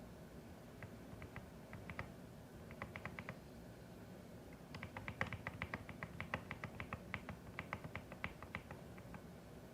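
Typing on a CIDOO ABM081 Stellar mechanical keyboard. A few scattered keystrokes come first, then a quicker run of clicks starts about halfway through.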